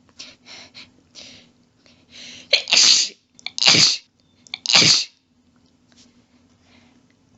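A person sneezing in a rapid allergy fit: a few short catching breaths, then three loud sneezes in quick succession about a second apart, followed by faint breathing.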